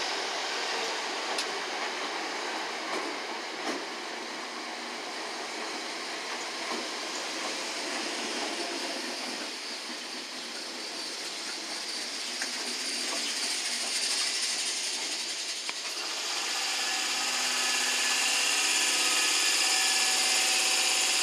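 Electric multiple unit pulling out of a station, its carriages running past close by with a steady rumble and hiss. About three-quarters of the way through, a set of steady whining tones comes up and gets louder as the train gathers speed.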